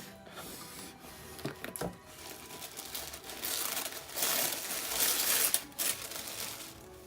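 Paper being handled, crinkled and torn while a gift-wrapped box is opened, with a few sharp crackles early on and the loudest rustling and tearing from about halfway through until shortly before the end.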